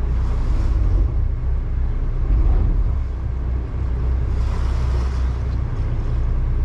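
A 60-foot motor yacht's twin engines running at low speed with a steady low drone, as the boat is pivoted in its slip with the joystick, one engine ahead and one astern. A brief rushing hiss rises over it about four seconds in.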